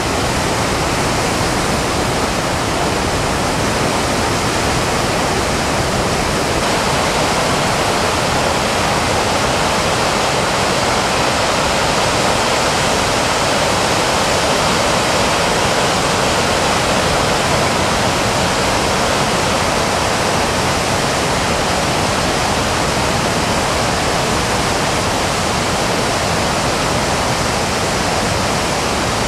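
Whitewater rapids of the Chenab River rushing over boulders: a steady, loud rush of water.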